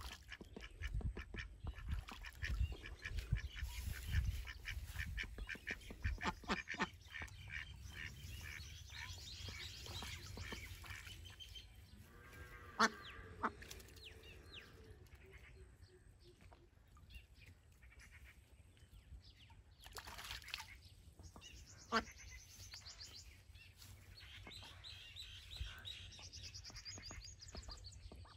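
Domestic ducks quacking and calling at intervals, with quick runs of quacks and short pitched calls. Low thuds come in the first several seconds, and two sharp clicks, the loudest sounds, come about halfway through and again some nine seconds later.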